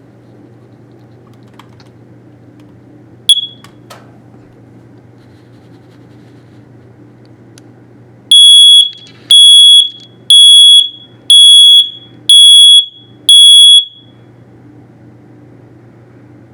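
A First Alert alarm under test chirps once, then sounds six loud, high-pitched beeps about a second apart before falling silent. A steady low hum runs underneath.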